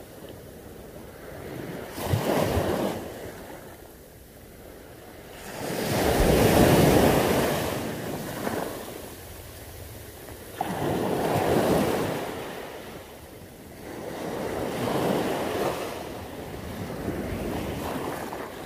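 Sea surf breaking on a rocky shore, swelling and falling away in surges about every four seconds.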